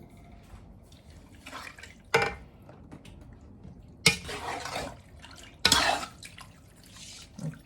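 Spoon knocking against a cooking pot three times, roughly every two seconds, each knock followed by a short wet splashing rush, as gizzards are stirred or moved in the pot.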